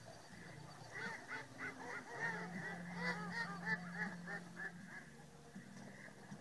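A large flock of geese honking together, many overlapping calls at once, thickest in the first few seconds and thinning toward the end. A low steady hum sits underneath from about two to four seconds in.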